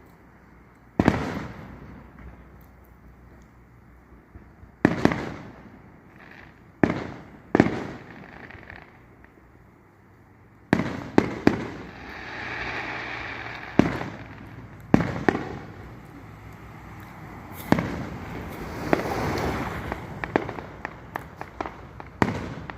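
Aerial fireworks bursting: a series of sharp booms a second or a few seconds apart, each trailing off, with stretches of crackling in the middle and again near the end.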